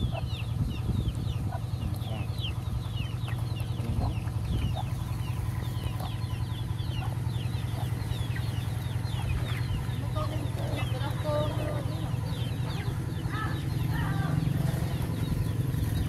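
Chickens clucking, with many short high peeping chirps repeating throughout and a louder run of calls in the second half, over a steady low hum.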